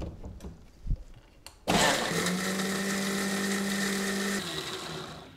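A few clicks as the blender jar is fitted onto its base, then about two seconds in an electric blender motor starts suddenly and runs steadily, grinding mint, coriander leaves, ginger, green chilies and water to a paste. The motor eases off near the end and stops.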